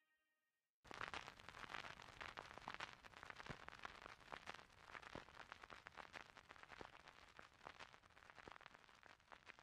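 Faint, dense crackling with scattered pops. It starts abruptly about a second in and cuts off suddenly at the end.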